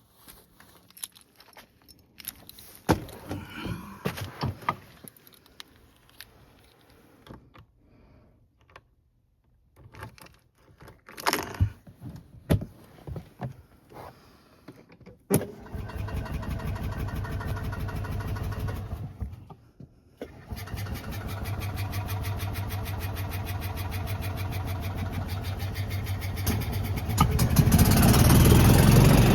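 Scattered clicks and knocks, then the gas engine of a 1992 Club Car DS golf cart turns over for about four seconds and stops. On the next try, with a little choke, it starts and runs, getting louder near the end. It is a hard start, just after a carburetor change and magneto cleaning.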